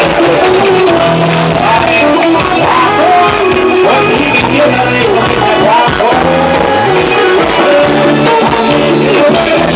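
Live Thai retro ramwong band playing a dance song, with a singer carrying the melody over the band.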